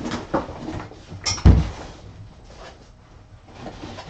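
Cardboard box and packing being handled and rummaged through, with scattered rustles and clicks and one heavy thump about one and a half seconds in.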